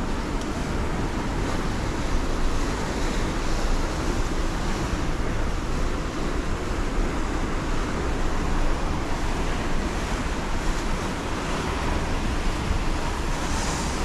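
Water rushing over a dam spillway: a steady, even noise with a deep rumble underneath.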